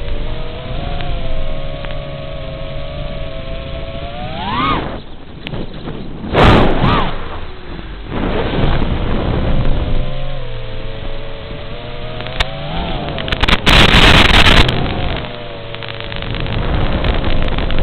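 Racing quadcopter's brushless motors and propellers whining with a steady hum. The pitch sweeps sharply up and back down about a third of the way in, and rises again later as the throttle changes. Loud rushing wind bursts come near the middle and again about three quarters of the way through.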